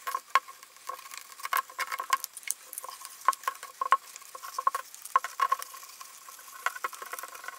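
Wide rubber ring being stretched and worked by hand off the fabric-covered body of a SVEN PS-340 Bluetooth speaker: a run of irregular scratchy rustles and small clicks of rubber and fingers rubbing on the acoustic fabric.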